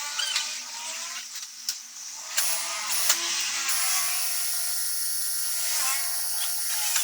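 A small electric motor or power tool whining, wavering in pitch at first, then running at a steady speed from a little past halfway.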